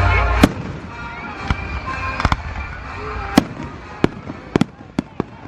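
Fireworks display going off: a string of about nine sharp bangs at irregular intervals, with a low rumble that stops about half a second in.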